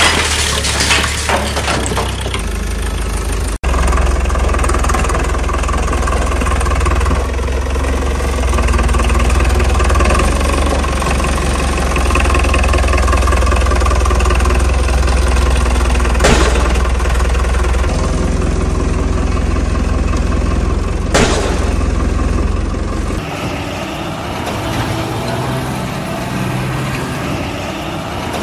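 An engine running steadily with a low rumble, its tone shifting a few times. Two sharp clicks come in the second half.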